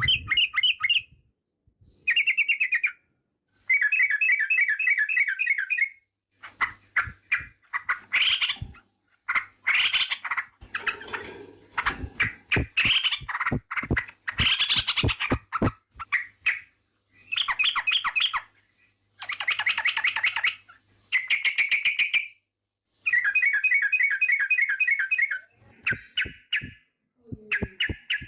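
Male yellow-vented bulbul (trucukan) singing: repeated bubbly, chattering phrases, each a second or two long, with short pauses between. A run of sharp clicks is mixed in through the middle and again near the end.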